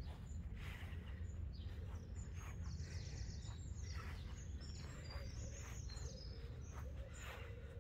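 Small birds chirping and singing in short high phrases, busiest in the middle seconds, over a steady low background rumble.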